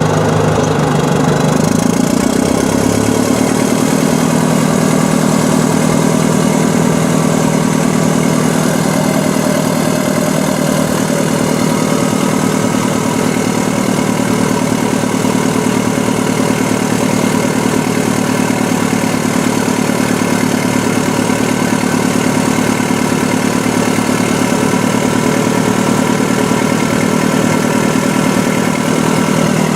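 Heavy equipment diesel engine running steadily, its pitch shifting during the first couple of seconds and then holding even.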